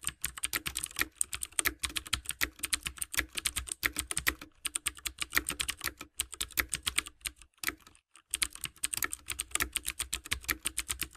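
Computer keyboard typing sound effect: a rapid, uneven run of key clicks, with a short pause about eight seconds in.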